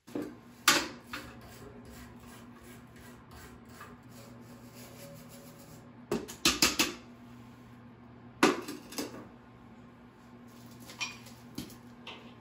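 A hand tool scraping and knocking at a metal wood-stove door frame, clearing off the old gasket. The sharp metal clinks come in clusters, a few about a second in, a quick run around six seconds and more around eight and a half seconds, over a steady low hum.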